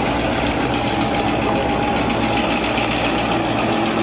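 Victorian Railways T-class diesel-electric locomotive T334 with its engine running steadily as it rolls slowly past at close range.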